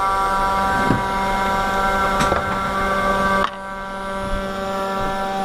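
3018 desktop CNC router with a 500 W spindle running a small bit through wood, a steady whine of several tones over machining noise. There are two short clicks, and about three and a half seconds in it suddenly drops quieter while the whine carries on.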